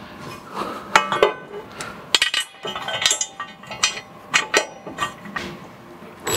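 Irregular metallic clinks and knocks, a dozen or so, some ringing briefly: a corn-head trash knife and its bolts being handled and set against the row unit's metal frame.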